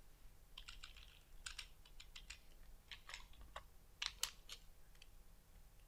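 Faint, irregular keystrokes on a computer keyboard as a word is deleted and retyped. The clicks stop a little over a second before the end.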